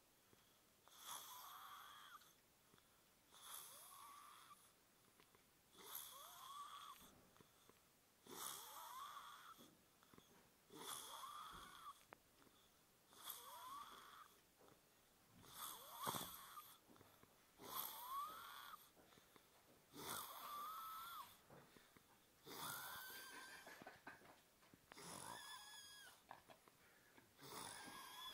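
Faint, slow snoring, about twelve breaths a couple of seconds apart, each with a high whistling wheeze that rises in pitch.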